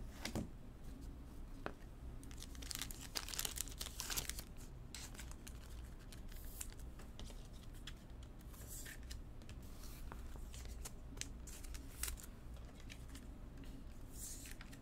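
Faint, scattered crinkling and rustling of card-pack wrappers and packaging being handled, in short irregular bursts that are busiest a few seconds in.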